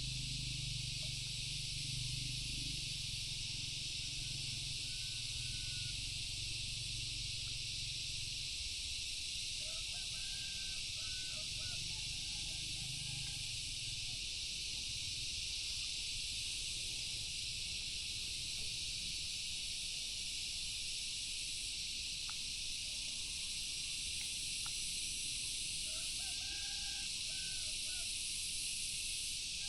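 Steady high-pitched outdoor ambience hiss, with a few faint distant bird calls; the two clearest are arched calls lasting about a second and a half, about ten seconds in and near the end.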